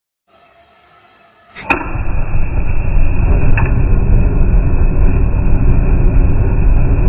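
Large-nozzle gas torch lighting suddenly about a second and a half in, after a faint hiss, then burning with a loud, steady rush of flame.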